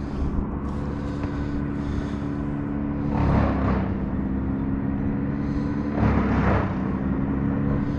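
A kayak's motor humming steadily while trolling on the lake, with a brief rush of water about three seconds in and again about six seconds in.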